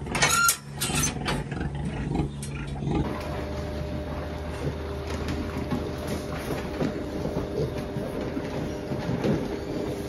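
Pigs in a pig house: a short, high piglet squeal in the first second. From about three seconds in, pigs grunt and snuffle close by over a steady mechanical hum.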